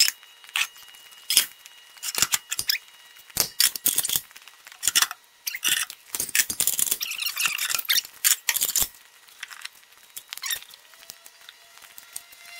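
Metal aircraft weighing-scale platforms being handled and set down on a concrete hangar floor, played back fast-forward: a quick string of sharp metallic clanks and clatters that thins out in the last few seconds. Near the end, a faint tone sliding slowly downward begins.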